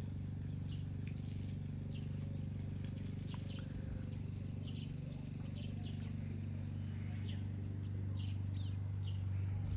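Petrol lawn mower engine running steadily as an even low hum, with a small bird's short, high, downward-sweeping call repeating about once a second.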